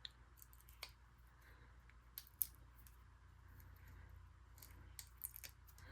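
Near silence with a few faint, short clicks and ticks from small paper and craft supplies being handled on a table.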